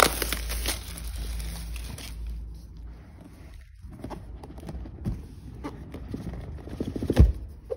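Plastic shrink-wrap crinkling for about two seconds, then hands handling a MacBook Pro's cardboard box: soft taps and knocks, with one sharper thump near the end.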